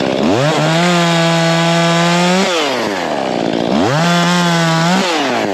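Chainsaw engine idling, then revved to full throttle twice, each time held steady for about two seconds before dropping back to idle.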